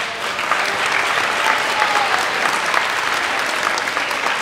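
Audience applauding loudly: many people clapping at once in a dense, steady patter.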